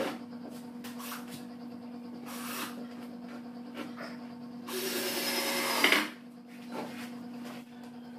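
Plywood panels being handled during cabinet assembly, with a few light knocks of wood against wood over a steady background hum. About five seconds in comes a loud, harsh rushing noise lasting just over a second.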